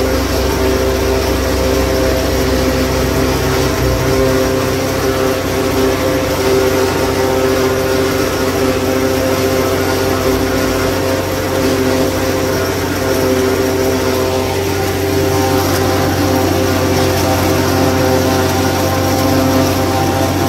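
Tractor engine and PTO-driven forage harvester running steadily under load while chopping standing maize, heard from inside the tractor cab as a constant drone with a steady whine.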